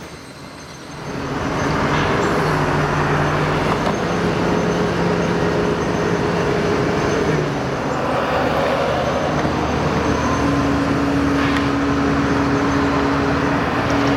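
Motor vehicles passing close on the street, with engine hum and tyre noise. The noise swells about a second in, holds steady, and eases off near the end, with the engine tone changing partway through as the traffic changes.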